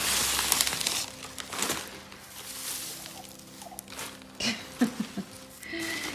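Newspaper wrapping and shredded-paper packing rustling and crinkling as it is pulled off a potted plant in a cardboard box, loudest in the first second and then in scattered crackles.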